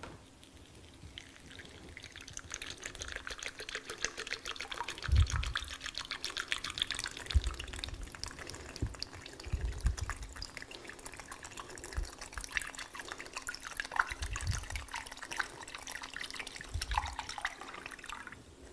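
Simulated blood being poured into a plastic fluid supply bag: a continuous trickle that starts about a second in and stops near the end. A few low bumps come from the bag and bottle being handled.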